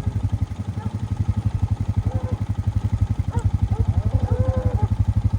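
Small farm-vehicle engine running steadily at low speed, with a quick, even firing pulse.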